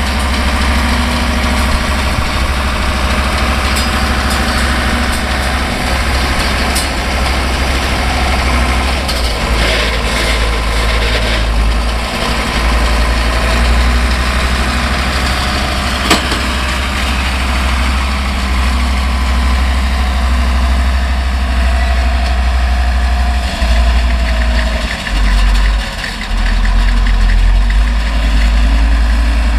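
An older Deutz tractor's diesel engine runs steadily under load while pulling and driving a New Holland Cropcutter 644 round baler, which is working without interruption. A single sharp click comes about halfway through, and the engine sound dips briefly about three-quarters of the way in.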